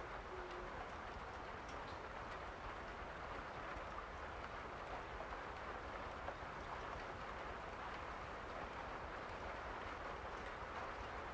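Steady rain falling, an even hiss with a faint low rumble beneath and a few light drip ticks.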